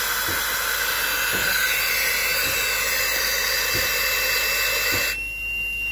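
Compressed air hissing steadily out of a firefighter's breathing-apparatus face mask held over a cat to give it air; the hiss cuts off abruptly about five seconds in.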